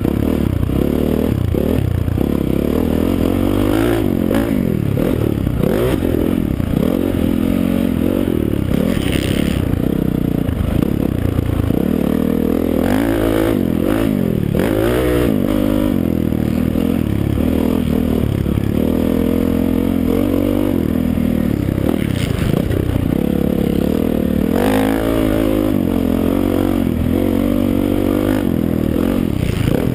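Honda CRF450 dirt bike's single-cylinder four-stroke engine being ridden hard, revving up and falling back again and again through the gears.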